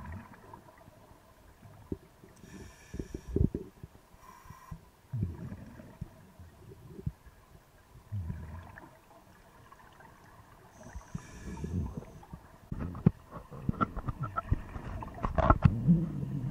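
Scuba diver breathing through a regulator underwater: short hissing inhalations and bursts of exhaled bubbles gurgling and rumbling every few seconds, busier and louder near the end.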